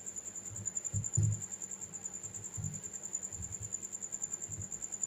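A steady, high-pitched trill pulsing very fast, under soft low bumps from hands pushing insulation sleeving onto a fan-winding wire.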